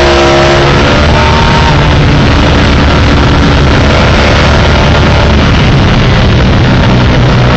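Sport motorcycle engine running hard at high revs, heard from on board, under a dense rush of wind noise on the microphone. The engine note climbs just before the start, is mostly buried by the wind, and holds a steady pitch again later on.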